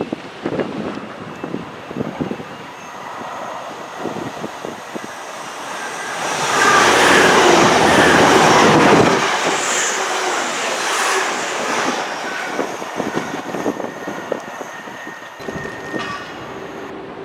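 Train passing on the line, wheels clattering over rail joints, loudest from about six to nine seconds in, with a steady hum near the end.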